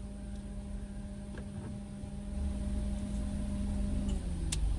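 Steady low hum and rumble of a car, heard from inside the cabin; the hum drops slightly in pitch about four seconds in.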